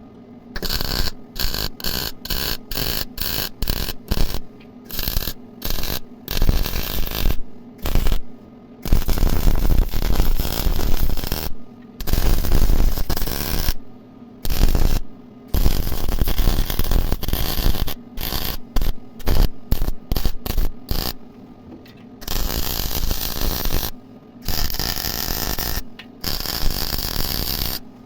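Electric arc welding in repeated bursts that start and stop abruptly. A rapid string of short tack welds comes first, then several longer weld runs of two to three seconds each.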